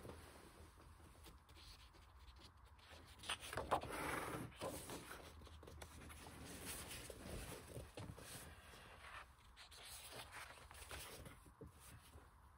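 Pages of a large hardcover art book being turned and smoothed flat by hand. The paper rustles and slides faintly, loudest for about a second around four seconds in.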